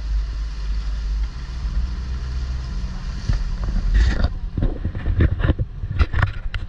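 Outrigger banca boat under way: its engine running steadily under wind and rushing water. From about four seconds in, a run of irregular slaps and splashes sounds over it.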